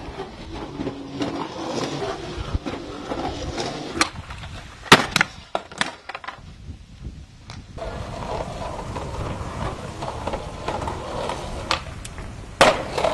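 Skateboard wheels rolling on concrete, broken by sharp clacks of the board popping and slamming down, the loudest about five seconds in, and another hard impact near the end.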